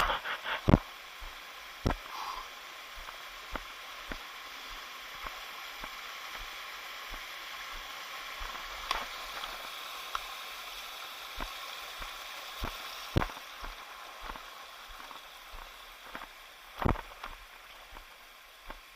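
Steady rush of flowing stream water, with scattered sharp knocks and scuffs, loudest near the start and twice in the second half.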